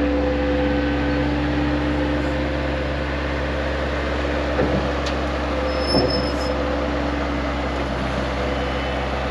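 Engine of a bucket loader running steadily at work, with a couple of short clunks in the middle.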